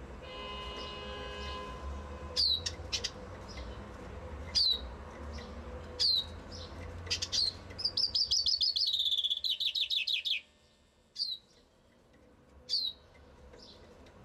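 Common chaffinch giving short, sharp call notes that drop in pitch, one every second or two. About halfway through it sings one full song: a rapid trill of about three seconds stepping down in pitch and ending in a flourish. A low background rumble drops away just after the song.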